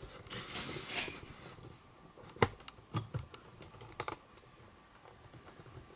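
Rustling and several sharp clicks and taps on a plastic-coated tabletop, from movement around a cat and a glass bowl: a rustle in the first second and a half, then four or five clicks, the loudest about two and a half seconds in.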